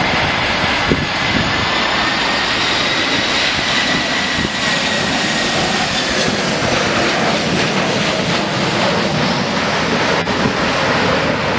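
Jet engines of an Airbus A320-family airliner landing: a steady loud rush with a high whine that slowly falls in pitch as the jet touches down and rolls past.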